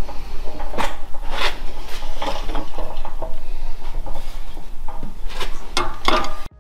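Light metallic clinks and knocks, irregular, as a steel wheel hub and half-inch wheel stud are handled and set on steel packers under a hydraulic bench press, with a steady low hum underneath. The sound cuts off abruptly near the end.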